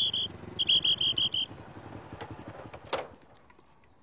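Traffic police pea whistle blown in fast trills, a short one ending just after the start and a second about a second long, over a motorcycle engine running low that fades out; a sharp click about three seconds in.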